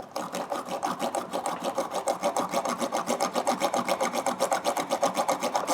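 A small brass wire brush scrubbing steel pliers, a fast, even rasping of about ten strokes a second that stops abruptly at the end.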